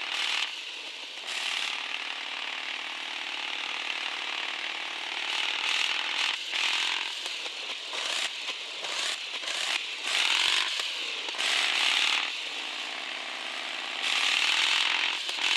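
Radio-controlled 4x4 crawler's electric motor and gear train whining as it drives, the pitch drifting up and down with the throttle. Several louder hissy stretches come and go over the whine.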